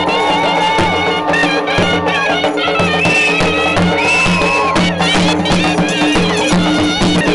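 Shehnai playing a wavering, gliding folk melody over a steady low drone, with dhol drum beats: the music that accompanies a horse dance.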